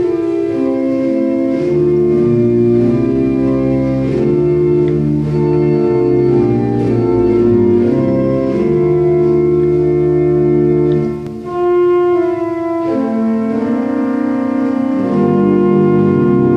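1894 Hill pipe organ playing sustained chords in a slow improvisation, the chords changing every second or two. The sound briefly dips about two-thirds of the way through before new chords come in.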